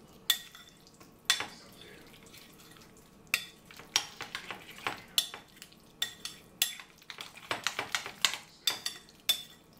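Metal spoon stirring a wet tomato and spice marinade in a glass mixing bowl, clinking and scraping against the glass at irregular intervals. The clinks come more often in the second half.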